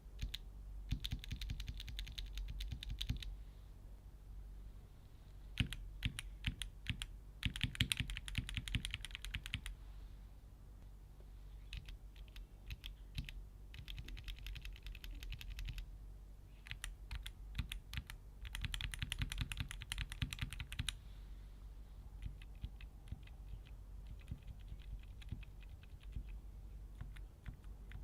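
Typing on a mechanical keyboard with Keychron K Pro switches. Fast runs of keystrokes lasting a few seconds alternate with slower, sparser key presses.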